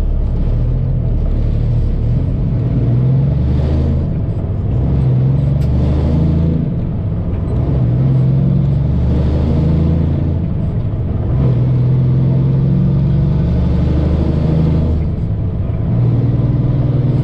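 Semi truck's diesel engine heard from inside the cab, pulling away and accelerating up through the gears: the engine note climbs, dips briefly at each upshift, and climbs again, about four shifts several seconds apart.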